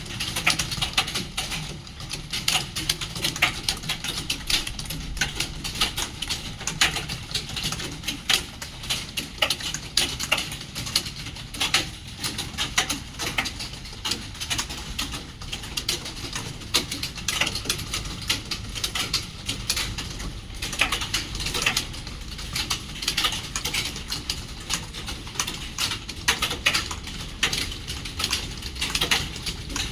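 Several computer keyboards being typed on at once during a timed typing test: a dense, continuous clatter of key clicks with no break.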